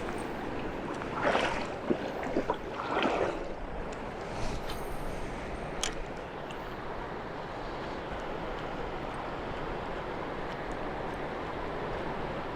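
Steady rush of the South Platte River flowing, with a few brief louder noises and light clicks in the first few seconds.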